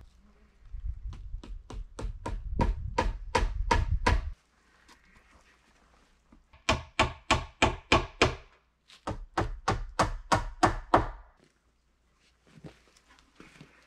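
Hammer driving roofing nails through felt into a wooden roof, in three runs of quick strikes at about three a second.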